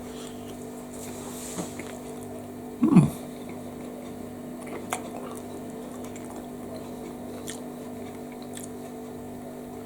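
A person chewing a soft steamed bao bun, with faint small mouth clicks over a steady background hum. There is one brief, louder low sound about three seconds in.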